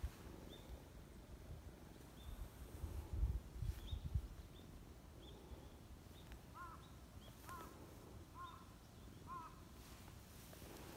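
Small birds chirping in the background: a thin, high chirp repeating every second or so, and in the middle a run of four short, lower chirps about a second apart. A low rumble on the microphone about three to four seconds in.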